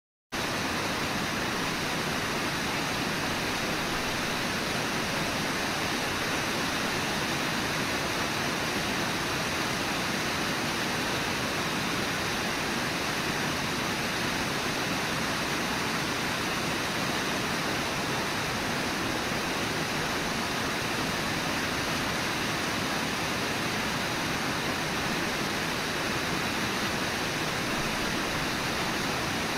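Steady rush of the Brooks River's fast water at Brooks Falls, an unbroken, even roar of water.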